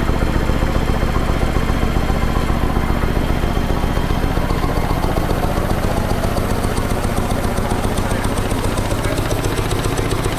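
Belliss & Morcom high-speed enclosed steam engine running steadily and smoothly with a fast, even beat, driving its DC generator under an electric lamp load.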